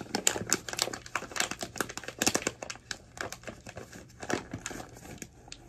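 Packaging bags crinkling as they are handled, in a rapid irregular run of crackles that thins out near the end.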